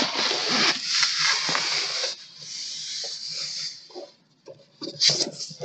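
Cardboard scraping and rubbing as a white inner box slides out of its printed cardboard sleeve. There is a loud dry rasp for about two seconds, then a quieter one, then a few light taps near the end.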